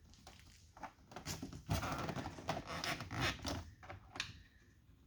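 Scraping, rustling and scattered clicks of hand work at the bottom of a plastic truck door panel, with a burst of scratchy handling in the middle, as a screw is worked into a spot where it does not want to go in.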